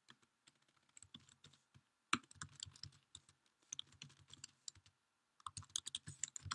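Faint typing on a computer keyboard: quick runs of key clicks in several short bursts with brief pauses between them.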